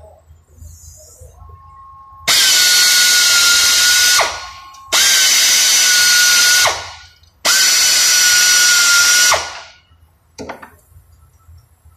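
Pneumatic air ratchet on an air hose, run in three bursts of about two seconds each at the transmission oil pan, with a steady high whine and air hiss. Each burst ends as the air motor spins down.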